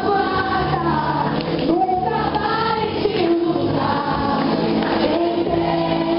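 A young woman singing a Portuguese-language song into a microphone, her voice holding and gliding through long notes over steady accompanying music.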